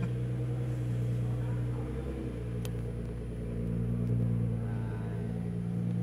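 Nissan GT-R R35's twin-turbo V6 running at low revs as the car creeps forward on light throttle. The engine note shifts slightly a couple of times.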